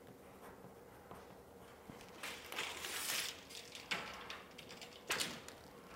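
Faint rustling and handling noises as a steel tape measure is pulled out and held against a cabinet panel. The rustles come in a few short bursts, starting about two seconds in.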